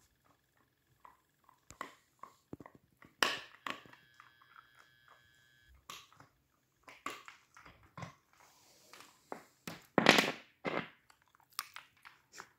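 Siberian husky chewing and mouthing while lying down: irregular smacking and crunching clicks from its jaws. A louder, longer noisy burst comes about ten seconds in.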